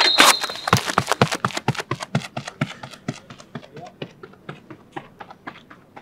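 A sprinter's footfalls on a synthetic running track, quick and even at about four to five strikes a second as he explodes out of the starting blocks, growing fainter as he runs away. It opens on the tail of a sharp start sound.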